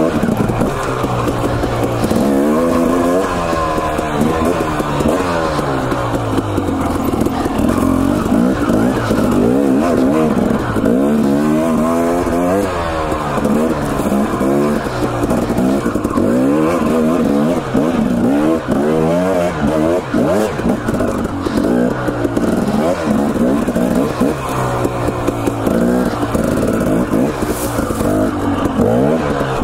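Husqvarna TE 250 two-stroke dirt bike engine revving up and down repeatedly as it is ridden over rocky single track, its pitch rising and falling every second or two.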